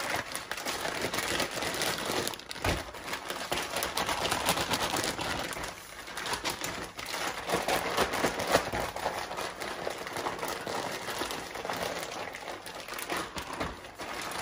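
Sealed plastic zipper bag of chicken pieces in marinade being kneaded and shaken by hand to coat the meat: continuous crinkling and rustling of the plastic, rising and falling as the bag is worked.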